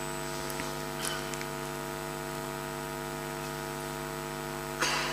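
Steady electrical mains hum with a buzz of many overtones, unchanging throughout, with a faint click about a second in.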